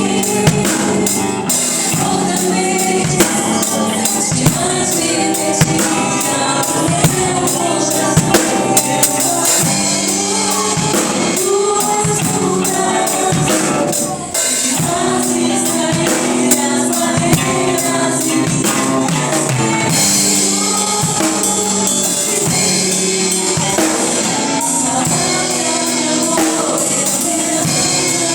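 Upbeat gospel worship music: a band with drum kit and tambourine keeps a steady beat, with singing over it.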